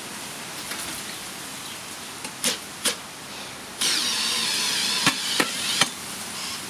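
Makita 40V cordless hammer drill (HP001G) turning a 300 mm earth auger into hard, compacted soil. The motor starts about four seconds in and runs for about two seconds with a wavering whine, held at low speed on the variable-speed trigger under heavy load, with three sharp knocks while it runs. Two sharp knocks come before it starts.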